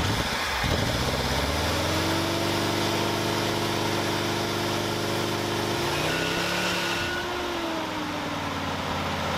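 The engine of a long-abandoned 1979 Ford one-ton truck catches and runs on fuel poured into its carburettor, its speed rising over the first couple of seconds and then holding steady. About six seconds in it stumbles and sags, then settles into a steady run at a slightly lower speed.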